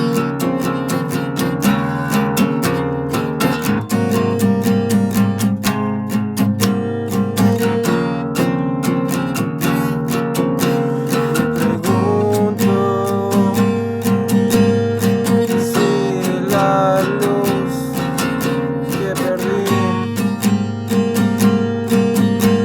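Music with acoustic guitar strumming and plucked notes, a melody line weaving above it in the second half.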